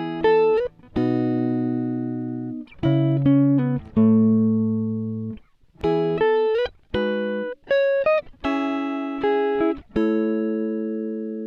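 Background music: a series of guitar chords, each struck and left to ring, about a dozen in turn.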